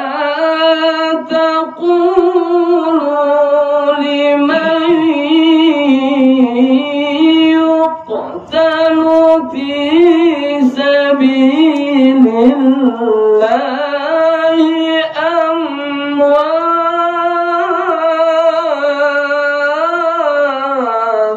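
A male qari reciting the Qur'an in melodic tilawah style into a handheld microphone, a long, high, ornamented melody that winds up and down. There are short breaths about eight and thirteen seconds in, and the phrase ends right at the close.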